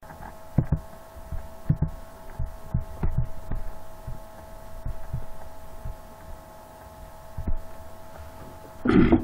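A steady hum runs through, with about a dozen irregular low thumps scattered across it and a louder short noise near the end.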